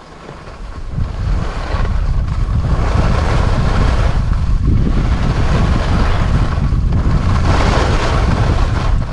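Wind buffeting an action camera's microphone while skiing downhill: a loud, steady rumble that builds over the first second. Over it, the hiss of skis sliding on rough snow swells every couple of seconds.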